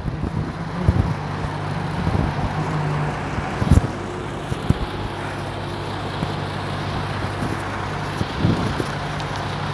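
A diesel truck engine idling steadily close by, a low even hum under a rushing noise, with a few sharp knocks, the loudest about four seconds in.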